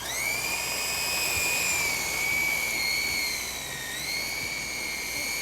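Toy radio-controlled helicopter's electric motor and rotors at full throttle: a high-pitched whine that rises sharply at the start, holds steady, then dips briefly about four seconds in and recovers.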